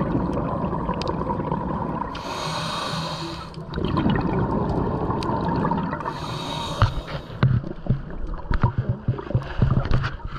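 Scuba diver breathing through a regulator underwater. Hissing in-breaths come at about two and six seconds in, each followed by a rush of exhaled bubbles that breaks up into bubbling pops near the end.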